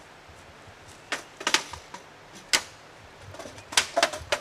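Several sharp, separate clicks and snaps from a paper sign being handled against a tree trunk, with a quick cluster of them near the end.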